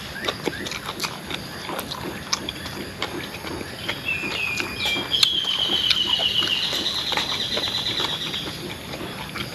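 Close-up wet chewing and lip-smacking of someone eating a mouthful of food, with many small clicks. From about four seconds in, a bird sings a high, rapid trill for about four seconds, louder than the chewing.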